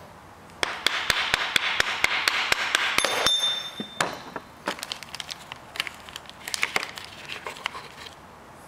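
Rapid light metallic clicks and scraping as a steel piston ring is spread with ring expander pliers and worked onto a forged piston. A short ringing ping comes about three seconds in, and the clicks grow sparser after about four seconds.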